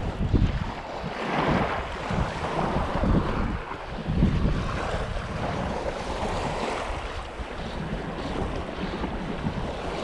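Small surf washing and breaking along the shore in swells, with wind buffeting the microphone in gusts.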